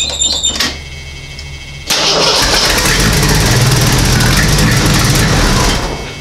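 1984 AMC Eagle wagon's engine cranked over by its starter for about four seconds, beginning about two seconds in after a brief steady high tone, and fading out near the end. The owner traces its failure to start to no fuel being pumped to the carburetor.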